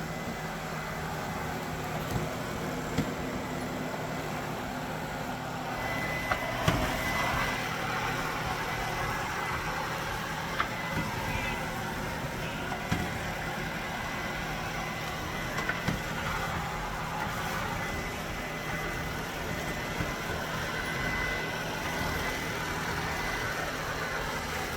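Robot vacuum sweeper running: a steady motor hum and brush noise, with a thin high whine joining about five or six seconds in and scattered light knocks as it bumps and turns.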